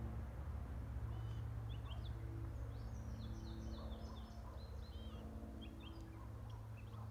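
Distant Lockheed Martin C-130J Super Hercules's four turboprops droning steadily, slowly fading as the aircraft climbs away. A small bird chirps in quick runs over it, busiest in the middle.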